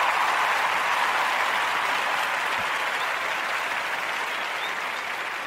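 Canned crowd applause, loudest at the start and slowly fading.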